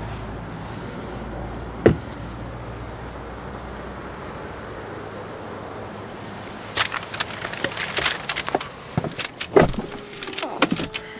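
A low steady hum that fades after about four seconds, with a single sharp click about two seconds in. From about seven seconds, a run of clicks, knocks and rustles from a car's door trim and cabin being handled, with a brief electric motor whine near the end.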